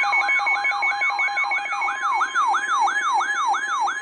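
Emergency alert signal: a siren-like tone that sweeps downward and repeats about three times a second over a steady tone beneath, sounding the start of a severe thunderstorm warning broadcast.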